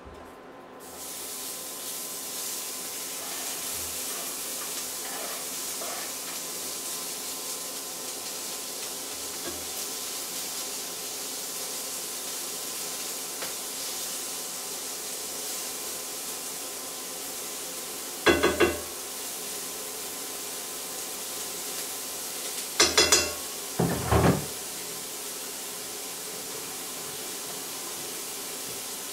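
Chopped onion and merguez sausages frying in a de Buyer iron pan: a steady sizzle that starts about a second in as the onion goes into the hot fat. A few sharp knocks stand out, one about 18 seconds in and a cluster a few seconds later.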